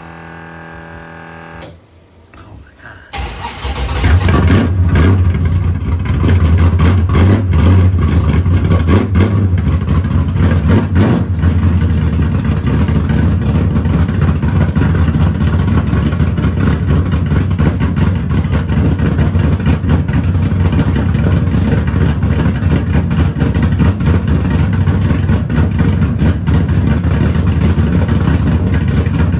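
A short stretch of music, then from about three seconds in the small-block 360 V8 of a street/drag car is heard running loud and steady.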